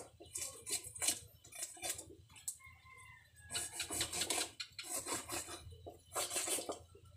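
Large kitchen knife cutting and scraping through a whole grouper on a wooden chopping block, in repeated short strokes, with longer rasping passes about halfway through and again near the end.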